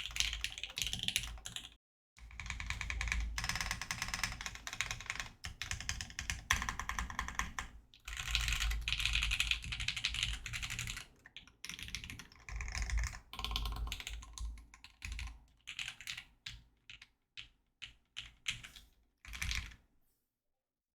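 Keys being mashed on a custom mechanical keyboard, a Sneakbox AVA with a POM plate, lubed Lavender switches with filmed housings, and GMK Cafe keycaps. After typing clicks and a short pause about two seconds in, the mashing is a dense, continuous clatter. About halfway through, it breaks into separate bursts that thin out and stop about a second before the end.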